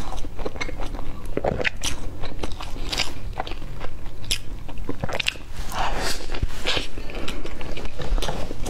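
Close-miked biting and chewing of a chocolate-coated Swiss roll cake: many short, crackly crunches from the chocolate shell among soft, wet chewing of the sponge and cream.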